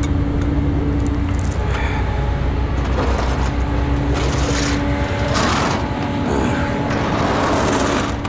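Diesel truck engine idling: a steady low rumble with a constant hum over it. About five seconds in, a rush of hiss and rustling rises over it for a few seconds.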